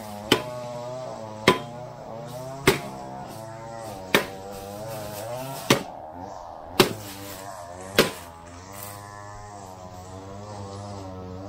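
Background music with a wavering sung or droning voice line, over which seven hard, sharp blows land at uneven intervals of roughly a second and a quarter, as a lawn mower is smashed.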